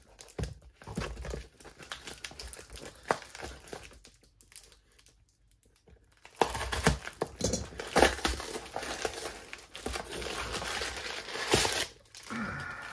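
Clear plastic wrapping around a small cardboard box crinkling and tearing as it is slit with a small blade and pulled off. It goes quieter for a couple of seconds in the middle, then turns to busier, sharper crinkling.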